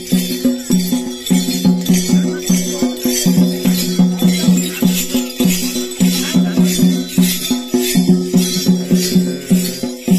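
Traditional drums beaten in a fast, steady rhythm, with hand bells jangling over the beat.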